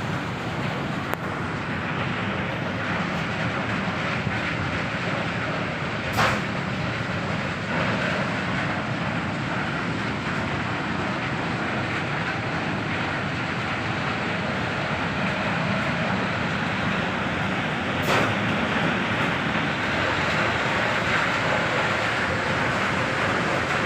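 Steady mechanical rumble of industrial machinery, with two sharp knocks about twelve seconds apart.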